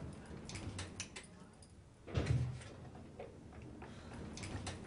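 Lift (elevator) mechanism: scattered light clicks, with one low clunk about two seconds in.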